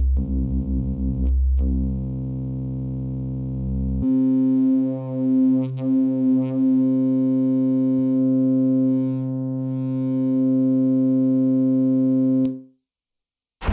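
Korg NTS-1 digital synthesizer sounding sustained notes from its custom multi-vector phaseshaping oscillator, a cosine wave reshaped into a buzzy tone rich in overtones. The note swells and dips in level at first. About four seconds in it changes to a steadier, higher note, which cuts off about a second before the end.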